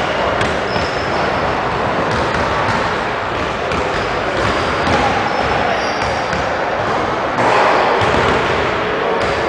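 Basketballs bouncing on a hardwood gym floor, echoing in a large gymnasium, with a few short high squeaks.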